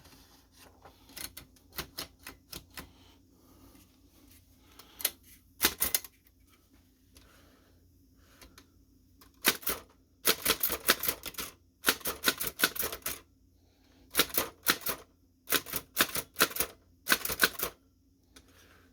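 Chicago typewriter being typed on, its keys driving the type sleeve against the paper in quick bursts of clicking strokes with short pauses between. A few lighter clicks come first, then the runs grow denser and louder. This is the freshly restored machine typing again.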